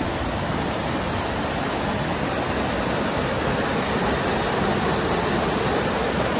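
Mountain stream cascading over boulders: a steady rush of white water, heard close up.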